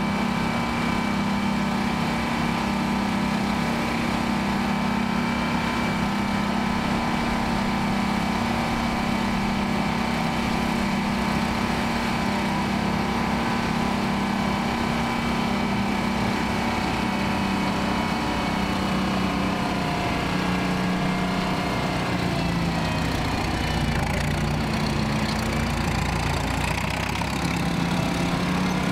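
1970 Brockway 359 truck tractor's diesel engine running steadily, driving the hoist that raises a 1962 Lufkin end-dump body. A low rumble comes in during the last several seconds as the load of dirt slides out the back.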